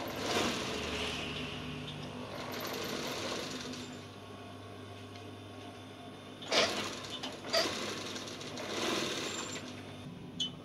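Industrial mattress tape-edge sewing machine running, stitching binding tape around a mattress edge, with a few sharp knocks in the second half.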